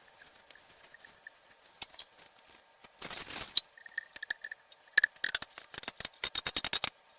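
Hand tool working a plumbing fitting loose: scattered clicks, a short scrape about three seconds in, then a quick run of clicks for the last two seconds or so.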